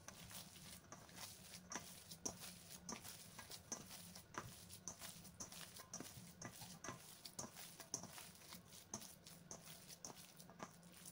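Faint, soft squelching and slapping of a hand kneading raw ground-meat meatball mixture in a stainless steel bowl, a squish roughly every half second.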